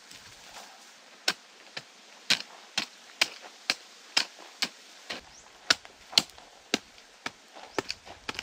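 Short-handled digging tool chopping into hard, dry earth in steady blows, about two a second, starting about a second in.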